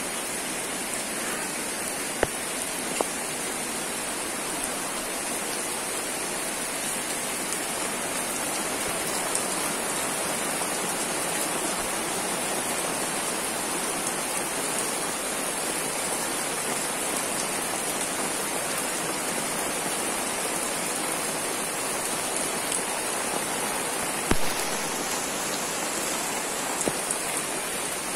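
Steady rain falling, with a few sharp ticks of nearby drops, the loudest about two seconds in and near the end.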